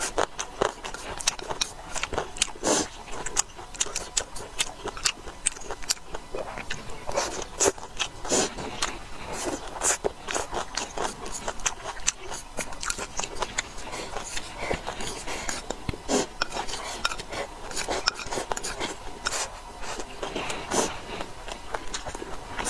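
Close-up eating sounds: utensils clicking and scraping against a bowl or plate, mixed with biting and chewing. Many short, irregular clicks.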